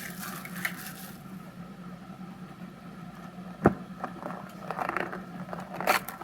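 A sealed baseball-card hobby box being opened by hand: cardboard scraping and crackling, with one sharp knock about three and a half seconds in and a flurry of rustles and clicks near the end.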